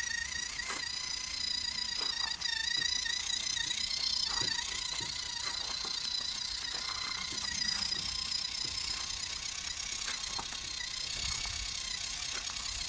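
Electric motor and gearbox of a WPL RC truck whining steadily as it crawls along, with scattered clicks and rattles from the drivetrain and the log-loaded trailer.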